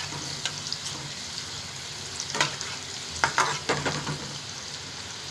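Chopped carrots and beans sizzling in hot oil in a pan while being stirred, with a few scrapes of the spoon against the pan a little past the middle.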